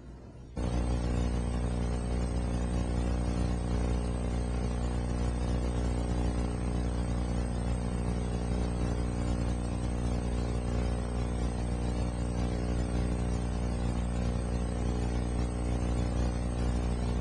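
A steady, unbroken hum with many even overtones, cutting in abruptly about half a second in and holding at one pitch throughout, like running machinery or electrical equipment.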